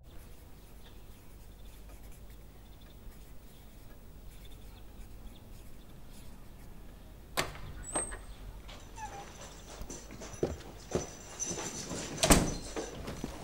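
A door opening and people coming into a small room. About seven seconds in there is a sharp knock and a brief squeak, then scuffing footsteps and several knocks, the loudest a heavy thump near the end.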